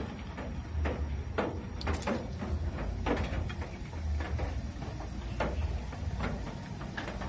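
Raw banana slices being dropped into hot oil in a steel wok, frying with irregular crackles and spits, over a low steady hum.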